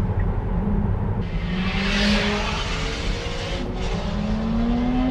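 Tesla Model 3 heard from inside the cabin as it accelerates. Road and tyre noise swell and fade, and a low drone rises steadily in pitch near the end.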